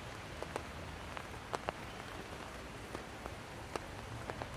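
Steady rain falling, an even hiss with individual drops tapping sharply and irregularly close by.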